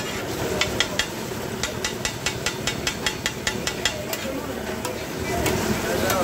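Metal spatula clicking and scraping rapidly and irregularly against a large flat iron griddle as diced beef liver is stirred and chopped in oil, with a frying sizzle underneath.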